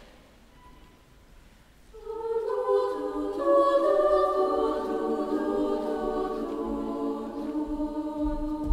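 Mixed choir of women's and men's voices singing sustained chords, entering about two seconds in with the parts joining one after another and then holding full, ringing chords.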